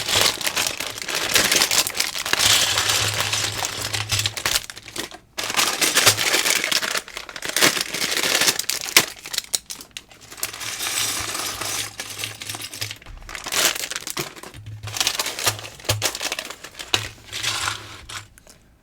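Plastic bags of building bricks crinkling as they are handled and sorted, with small plastic bricks clicking inside them.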